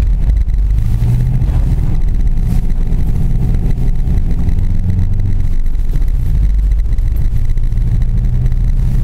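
Suzuki Grand Vitara's engine pulling the 4x4 slowly through deep snow, heard from inside the cabin: a steady low drone whose pitch shifts slightly a few times.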